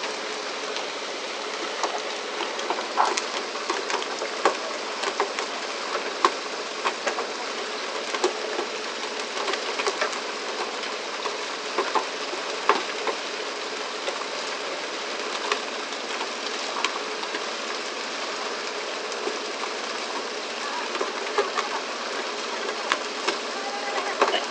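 A steady rush of water spray and boat noise, with irregular sharp slaps and knocks as tuna are swung aboard on poles and land on the deck.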